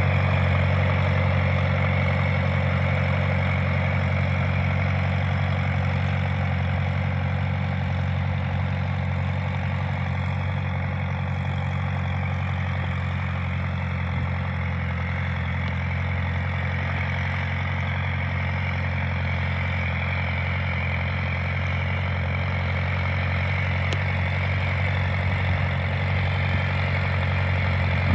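1956 Case VAC tractor's four-cylinder engine running steadily at low speed while the tractor is driven, a little fainter midway as it moves farther off.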